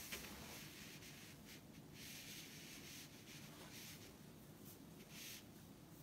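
Faint scratching of a pencil and a plastic pattern-drafting curve ruler rubbing on paper, in several short strokes.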